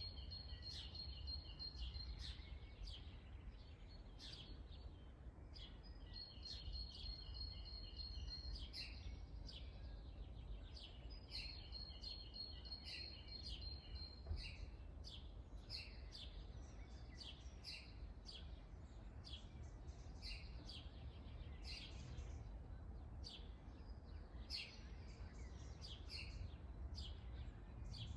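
Several birds chirping, one repeating a short high trilled phrase about every five seconds during the first half, among many brief chirps, over a steady low rumble.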